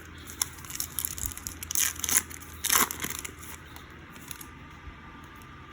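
Foil trading-card pack wrapper crinkling and tearing as it is handled and opened, a run of crackly rustles lasting about four seconds, loudest in the middle.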